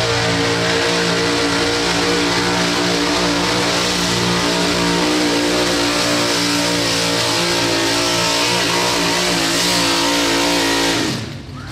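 Ford pickup's engine held at high, nearly constant revs under full load while pulling a truck-pull sled through dirt. About eleven seconds in, the throttle comes off at the end of the pull and the sound drops away sharply.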